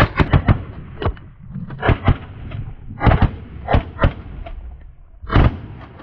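Volley of shotgun blasts from several hunters firing together, about a dozen shots in quick, uneven succession, a cluster in the first half second and a loud one near the end. Semi-automatic shotguns, cycling and ejecting spent hulls between shots.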